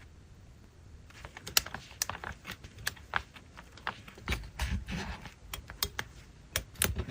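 Irregular light clicks and taps, several a second, starting about a second in, from journaling craft materials being handled and pressed on a desk.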